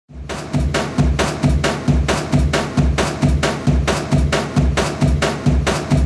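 Rhythmic drum-like beat from a washing machine standing in for a drummer: a steady groove of knocks and low thumps, about two beats a second, fading in at the start.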